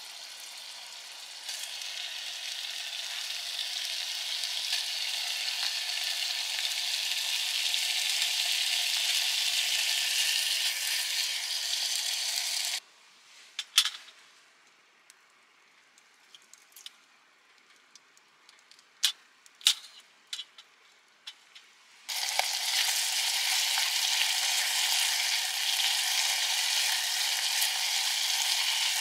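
A steady sizzling hiss that cuts off suddenly about 13 seconds in, leaving near quiet with a few sharp clicks and taps, then starts again just as suddenly about 22 seconds in.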